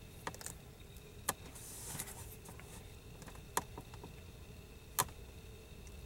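Faint handling noise of small flush side cutters snipping through the end of a leather cord and being set down: a few short sharp clicks, the sharpest about five seconds in.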